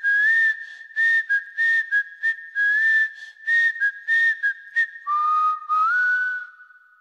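Whistled tune: a melody of short notes at a steady pace, each with a breathy attack, that drops to a lower note about five seconds in, slides up and fades out.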